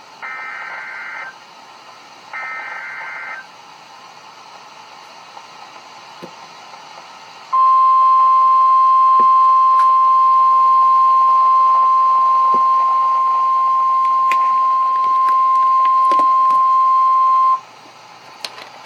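Emergency Alert System broadcast on NOAA Weather Radio for a severe thunderstorm watch. Two short screeching data bursts of the SAME header sound over faint radio hiss. A few seconds later comes the single steady NOAA warning alarm tone, loud and lasting about ten seconds before it cuts off sharply.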